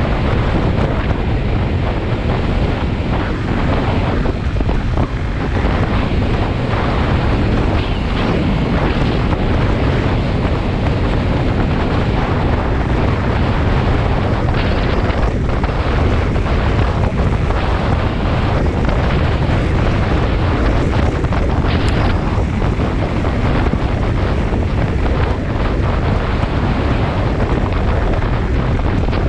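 Loud, steady wind noise rushing over the microphone of a camera mounted on a motorcycle moving at road speed.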